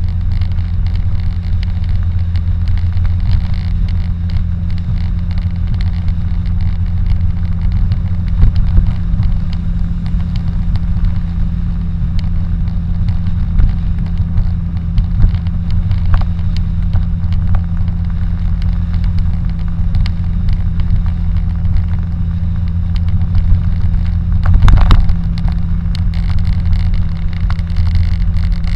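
Car driving at highway speed, heard from inside the cabin: a steady low drone of engine and tyre noise with occasional small clicks, and a brief louder rumble near the end.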